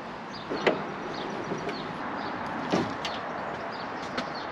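Three sharp plastic clicks and knocks as a silicone coolant hose is pressed into retaining clips and parts are handled in a car's engine bay, over a steady background hiss.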